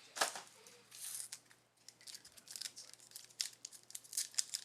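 Plastic trading-card packaging crinkling and tearing as card packs and a box are handled and opened: a string of sharp crackles and rips, the loudest just after the start and more of them in the second half.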